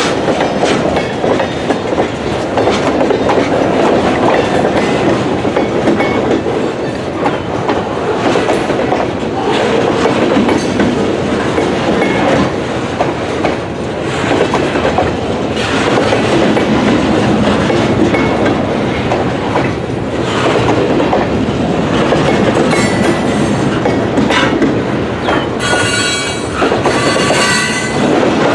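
Freight cars (lumber-loaded centerbeam flatcars and tank cars) rolling past at trackside, a steady rumble of steel wheels on rail with repeated clicking over the rail joints. Near the end, high-pitched wheel squeal joins in.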